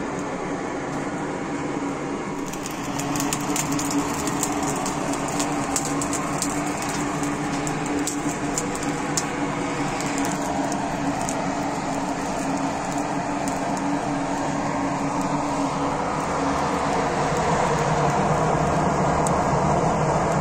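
Coal forge fire blown by its air blower: a steady rushing noise with a low hum, with sharp crackles and pops of sparks through the first half. It grows slightly louder near the end as the leaf-spring steel heats for forging.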